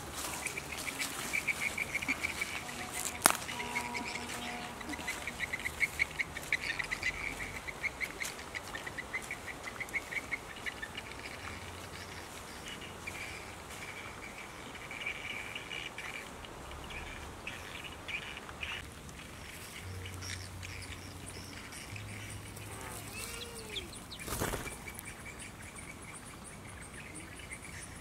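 Birds calling in rapid chattering trills, strongest in the first half, with a sharp click a few seconds in and a short rustling thump near the end.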